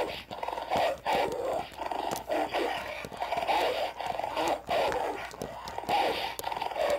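Dogs growling and snarling in a fight, in rough irregular bursts with no let-up, with a few sharp clicks among them.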